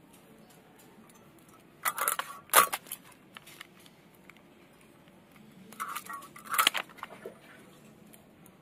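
A whole rohu fish being cut on a boti, a fixed curved blade: two short bursts of crunchy cutting and scraping, the first about two seconds in and the second about six seconds in.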